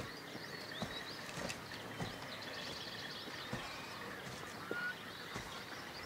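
Outdoor rural ambience of small birds chirping, with a few soft knocks spaced about a second apart.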